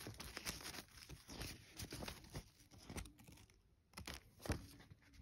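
Glossy paper leaflet from a DVD case being handled and leafed through: faint rustling and crinkling with scattered sharp crackles, the loudest about four and a half seconds in.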